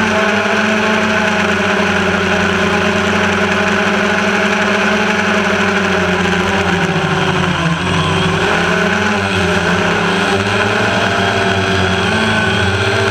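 Multirotor drone's electric motors and propellers whining steadily, heard close up from the camera on board. About eight seconds in, the pitch dips briefly and comes back up as the motors slow and speed up again.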